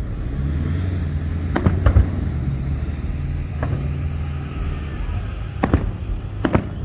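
Aerial firework shells bursting, about six sharp bangs at uneven intervals, some coming in close pairs, over a steady low rumble.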